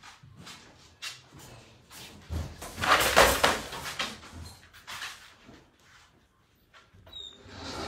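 Household handling noises: scattered knocks, with a loud clattering rattle lasting over a second a little before the middle, like a cupboard or door being opened and shut.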